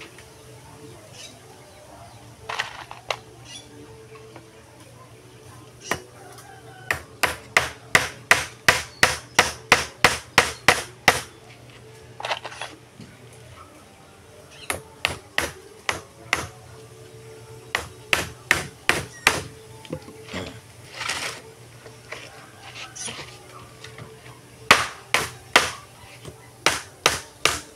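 Hammer driving nails into wooden planks: runs of sharp strikes, about two or three a second, with pauses between the runs.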